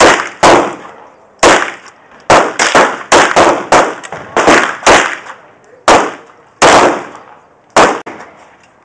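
Gunshots at a shooting range: about fifteen sharp cracks, irregularly spaced, some coming in quick runs of two or three.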